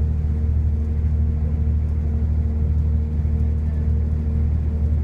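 Steady low rumble of a moving vehicle, with a constant hum on top.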